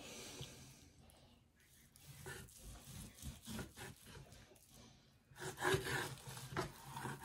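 A long knife sawing back and forth through the fat cap of a roasted prime rib on a wooden cutting board, a run of short rubbing, scraping strokes that grow louder about five seconds in.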